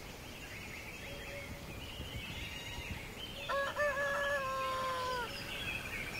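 A rooster crowing once, about halfway through: two short notes, then a long held note that drops in pitch as it ends.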